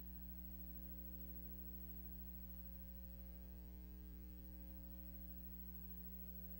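Faint, steady electrical hum with a little hiss, unchanging throughout.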